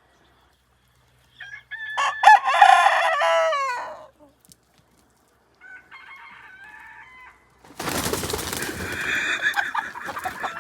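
Rooster crow sound effects played back: one loud crow about two seconds in that falls in pitch at the end, then a shorter, quieter crow. A loud, harsh, noisy sound starts near the end and runs on.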